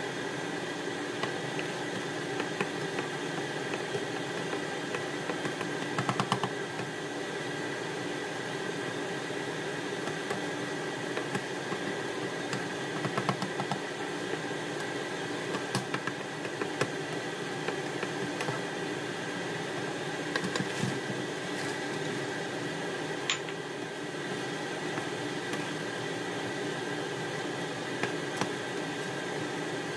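Steady fan-like hum of a kitchen appliance, with occasional scrapes and taps of a spatula stirring sauce in a nonstick pan.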